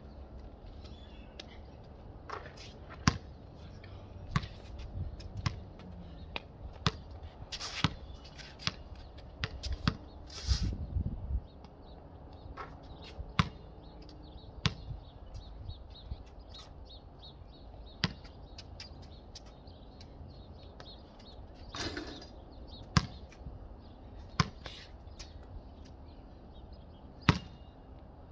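Basketball bouncing on a concrete court: scattered single sharp bounces and short runs of dribbling at an irregular pace.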